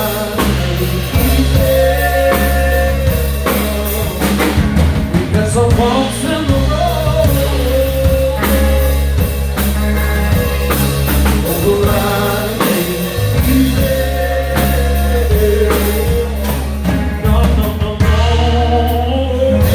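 Live rock band playing: drum kit and bass under a wavering lead melody line.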